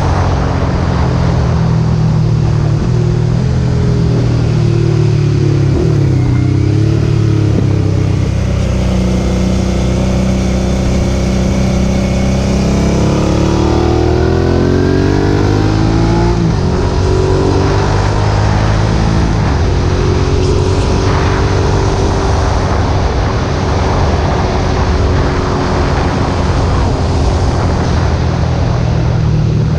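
2008 Suzuki SV650's V-twin engine through a Roadsitalia aftermarket exhaust with its db-killer fitted, running at fairly steady revs. About thirteen seconds in the revs climb quickly for a few seconds, then drop back sharply, as at a gear change, and it settles to a steady pull again.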